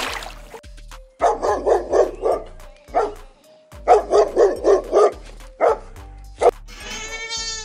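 A dog barking in two quick runs of about five barks each, with single barks between. Near the end a goat starts a long bleat.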